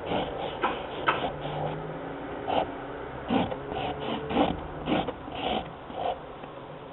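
Sharpie felt-tip marker scratching across paper as it writes, in an irregular run of short strokes that stops near the end.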